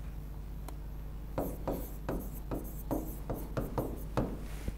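Handwriting: a quick run of about a dozen short pen or marker strokes, about four a second, starting about a second in, over a steady low hum.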